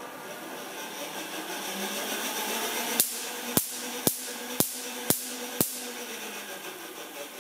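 Wimshurst machine being cranked, its spinning discs giving a steady whirring hiss, while sparks snap across the ball gap: six sharp cracks about half a second apart, starting about three seconds in.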